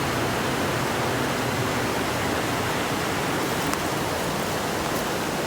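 Creek in flood after heavy storms: fast, high water rushing steadily, with no let-up.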